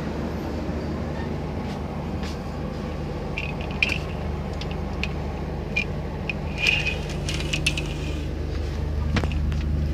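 Steady low mechanical hum inside an air-conditioned sleeper coach, with light metallic clinks and jingles scattered through the middle and two sharper clicks near the end.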